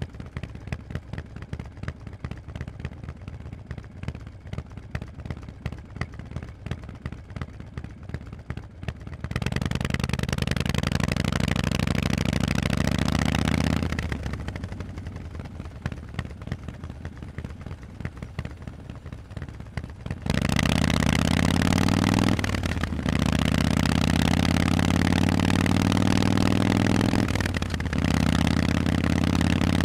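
Harley-Davidson Forty-Eight's 1200 cc V-twin through loud Vance & Hines exhausts: a low, pulsing idle for about nine seconds, then the engine opens up with rising pitch, eases off around fourteen seconds, and pulls hard again from about twenty seconds, with two short drops in the sound as it shifts up.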